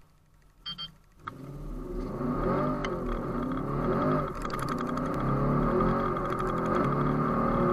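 Tuned Audi RS6 C7's twin-turbo 4.0-litre V8, heard from inside the cabin, launching hard from a standstill. After two short beeps, the engine comes in strongly about a second in and climbs through several quick upshifts, each a rising pitch that drops back, then pulls steadily in a higher gear.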